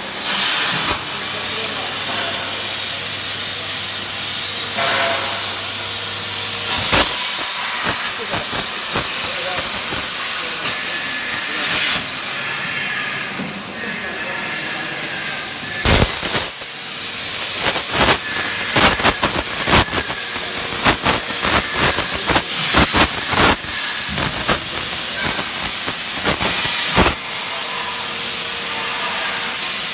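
Plasma arc of a 100 A CNC plasma cutter hissing steadily while it cuts steel plate. A low hum runs for the first several seconds. Sharp cracks and pops come in quick runs through the second half.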